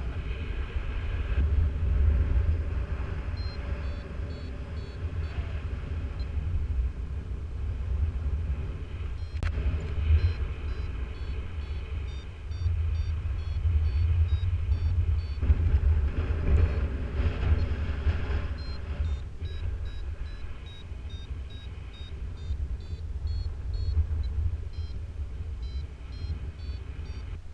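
Wind buffeting the microphone in flight, a heavy low rumble. Over it, a flight variometer beeps in runs of short high tones, the usual signal that the glider is climbing in lift.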